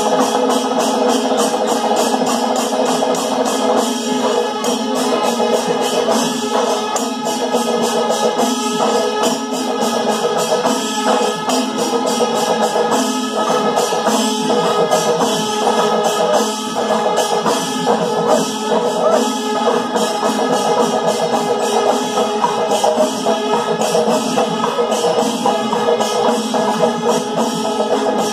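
Chenda melam, Kerala temple percussion: massed chenda drums beaten in a fast, dense rhythm, with ilathalam hand cymbals clashing throughout.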